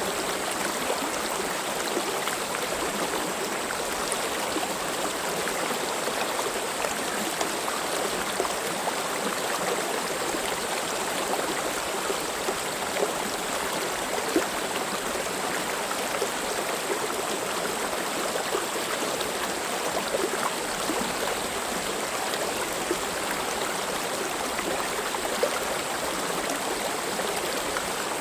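Valley stream running steadily: a continuous rush of flowing water with small splashes and trickles scattered through it.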